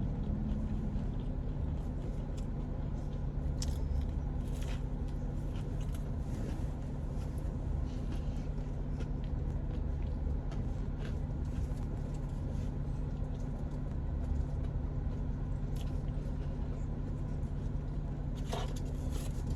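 Close-up chewing and biting of a fast-food chicken sandwich, with faint scattered crunches and wrapper scrapes, over the steady low hum of a car's idling engine heard inside the cabin.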